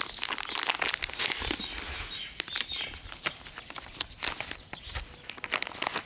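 Wet-wipe packet being torn open and crinkled in the hands: a dense, uneven run of crackles and rustles as the packaging is ripped and handled.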